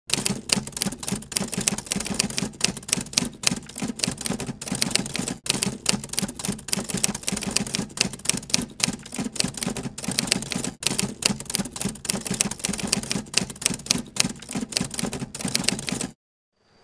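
Manual typewriter typing: a quick, steady stream of key strikes, several a second, that stops suddenly near the end.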